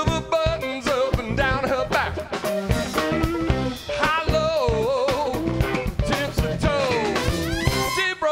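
Live electric blues band: a man belting out a vocal over electric guitar and a drum kit keeping a steady beat.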